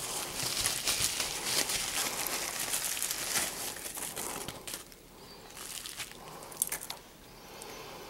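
Pink anti-static bubble wrap crinkling and rustling as a circuit board is unwrapped from it. The crinkling is dense for the first four seconds or so, then thins to a few scattered crackles.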